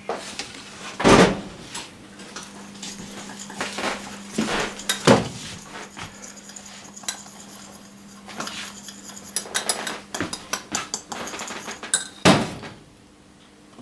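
Clinks and knocks of a mug and other crockery and utensils being handled on a stainless-steel kitchen counter, with three louder knocks: about a second in, about five seconds in, and near the end. A steady low hum lies under them and stops near the end.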